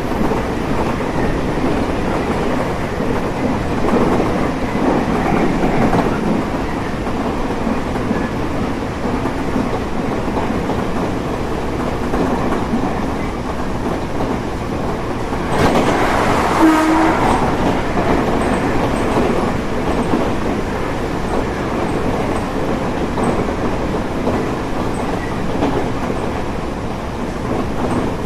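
Tobu 30000 series electric train running at speed, heard from on board: a steady rumble of the wheels on the rails with some clickety-clack. About halfway through, a louder rush swells for about two seconds and carries a brief tone.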